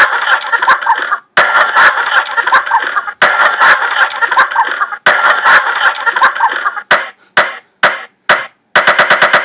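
Sound-effect collage edited from rooster recordings: four repeated, processed chunks of about a second and a half each, then a few short clipped bursts. Near the end comes a fast, even stutter of chopped-up sample hits leading into the music.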